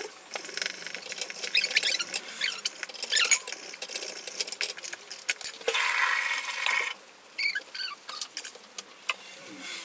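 Kitchen handling noises: scattered clicks and clatter of dishes and utensils, with short high squeaks. A hissing rush about six seconds in lasts roughly a second.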